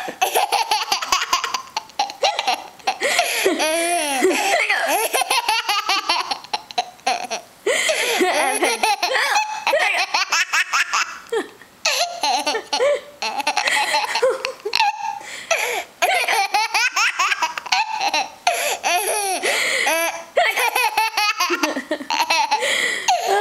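A young child laughing hard in repeated fits, with short breaks between them, set off by an adult's fake hiccups.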